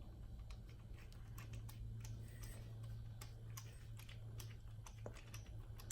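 Faint, irregular small clicks and ticks of an Allen wrench turning a screw into the plastic chassis of an RC truck, over a steady low hum.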